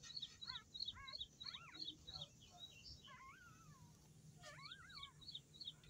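Newborn puppies squeaking and whining faintly while they nurse, a few short rising-and-falling squeals. Twice a rapid run of high chirps, about five a second, sounds alongside them.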